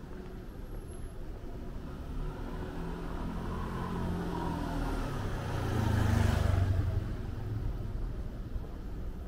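A car drives past close by: its engine and tyre noise grow louder over several seconds, are loudest about six seconds in, then fade away.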